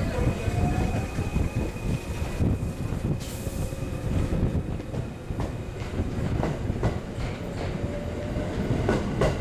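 A train running on the rails at the station: a steady rumble with wheels clacking over the rail joints and a faint wheel squeal.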